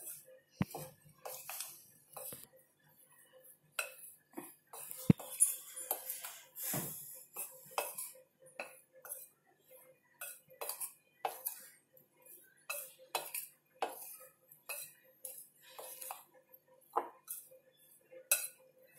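Steel spoon stirring and scraping in a mixing bowl, tossing corn kernels in cornflour and rice flour, with irregular clinks and scrapes and one sharper clink about five seconds in.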